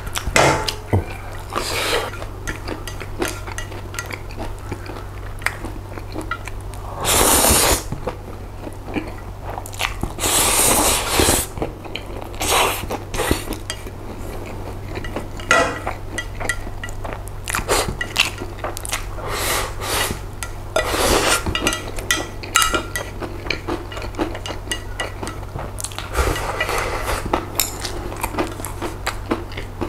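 Close-up eating of jjolmyeon noodles with chopsticks: two long loud slurps about 7 and 10 seconds in, with chewing and many short clicks of chopsticks against a ceramic plate between them.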